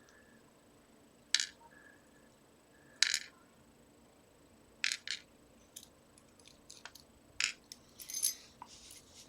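Small metal parts of a disassembled Trioving pin-tumbler lock clicking and clinking as they are handled. There are several separate sharp clinks, the two loudest about a second and a half and three seconds in, and a busier run of lighter clicks in the second half.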